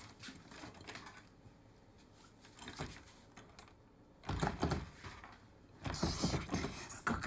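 Door lock being worked by hand: irregular mechanical clicks, then a much louder rattling about four seconds in.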